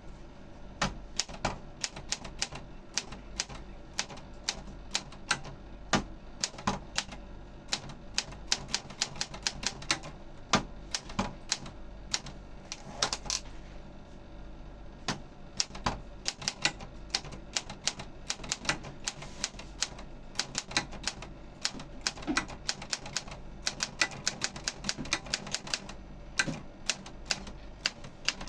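Olympia SF DLX portable typewriter being typed on: a fast, irregular run of sharp key strikes, several a second, with a short lull about halfway through.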